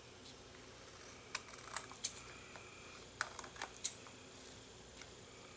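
Scissors snipping the edge of a glued cardstock card: a handful of short, sharp cuts in two groups, about one and a half and three and a half seconds in.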